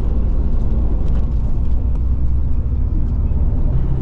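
Bus travelling on a road: a steady low rumble of engine and road noise, with a new steady engine note coming in near the end.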